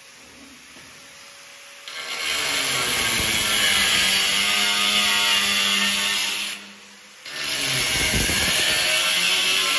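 Angle grinder with a diamond disc cutting through a ceramic tile. It cuts twice: once starting about two seconds in, and again after a short pause near seven seconds. These are separate passes along the sides of a square opening.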